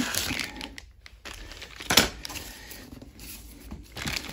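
Clear plastic packaging bags around antenna parts crinkling as they are handled, with a single sharp knock about two seconds in.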